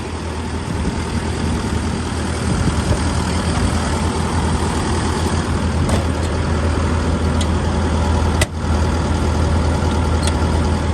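Hitachi ZX135US-3 excavator's Isuzu four-cylinder diesel engine idling steadily, a low even hum. A single sharp click about eight and a half seconds in.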